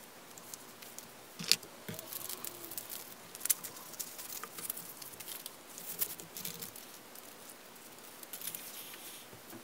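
Paper and small craft pieces being handled by hand: light rustling of paper with scattered small clicks and taps, the sharpest about one and a half seconds in.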